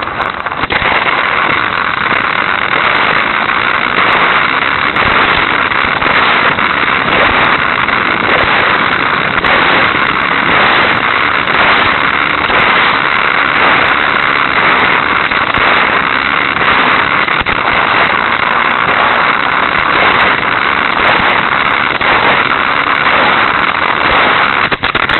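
Hot Wheels Sizzlers toy car's small electric motor running at high revs as the car laps its plastic track, a steady buzzing whir with the rattle of the wheels on the track, heard close up through the tiny keychain camera's microphone riding on the car.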